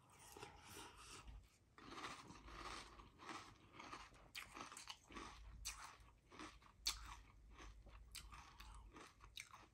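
Mouthfuls of Fruity Pebbles crunchy cereal in milk being chewed: faint, irregular crunching.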